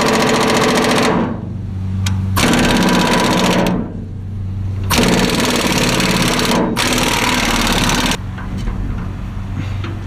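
Impact wrench hammering in bursts on trailer axle bolts. One burst ends about a second in, then two more follow, the last and longest about three seconds, with short pauses between.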